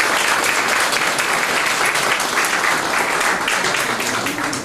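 Audience applauding, the clapping easing off near the end.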